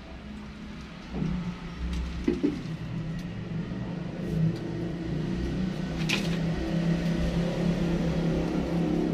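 A motor running with a low steady hum that starts about a second in and slowly grows louder, with a few short knocks.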